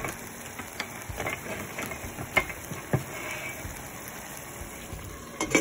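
A pot of potato cubes, onion and tomato cooking in oil and water with a steady soft sizzle, broken by a few light clicks. Near the end comes a louder clack as the glass lid is set on the pot.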